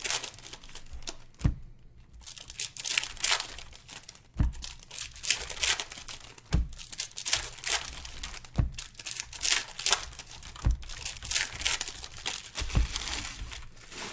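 Plastic wrapping on sealed trading-card boxes crinkling and tearing as it is stripped off by hand, with a dull thump about every two seconds as the boxes are handled.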